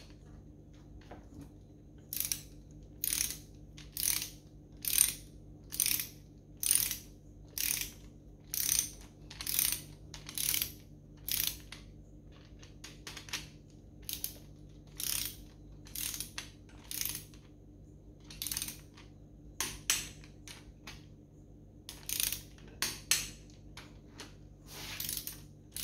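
Ratchet wrench clicking in short runs, about one stroke a second, as connecting-rod bolts are run down and nipped up before final torque. The middle stretch is quieter, and the clicking grows loud again near the end.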